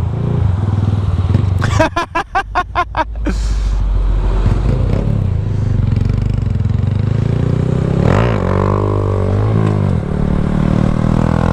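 Small motorcycle engines running steadily. About two seconds in, the sound pulses rapidly for over a second, and later a second engine revs up and down.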